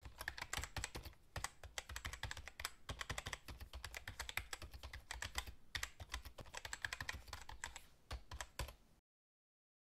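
Computer keyboard typing sound effect: a fast, uneven run of key clicks that stops about a second before the end.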